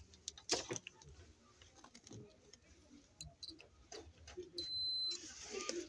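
Digital multimeter in continuity (buzzer) mode giving one short, steady high-pitched beep about four and a half seconds in, the sign that the probes are touching a connected path. Light scattered clicks and taps come before it.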